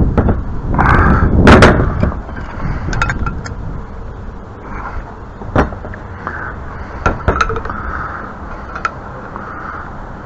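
Wind buffeting the microphone, loudest in the first two seconds, with scattered sharp clicks and knocks from pipe fittings being handled.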